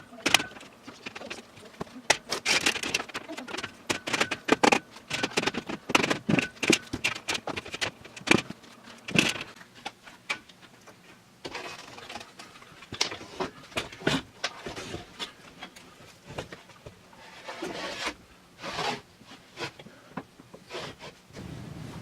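Irregular clicks, knocks and rattles of hard objects being handled, some in quick runs and some spaced apart.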